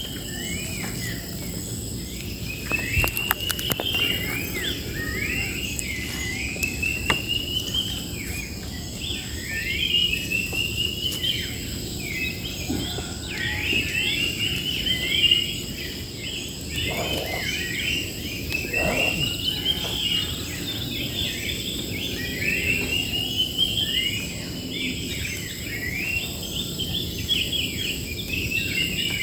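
Songbirds singing in a bamboo grove, one repeating a short rising phrase of quick notes every two to three seconds, over a steady high-pitched insect drone.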